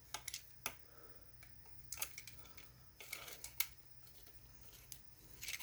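Scattered small clicks and scrapes of a pointed tool prying at a plastic speaker grille, a few sharp ticks coming in quick clusters, over a faint steady hum.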